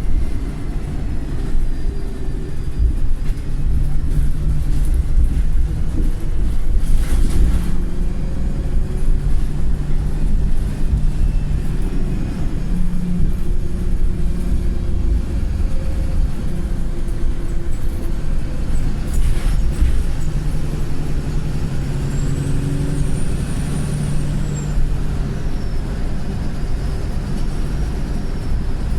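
Wright Pulsar single-deck bus heard from on board: the diesel engine runs continuously under load, its pitch shifting as the revs change. Late on, a thin high turbo squeal rises and then falls. Two short bursts of broad noise come about a quarter and about two-thirds of the way in.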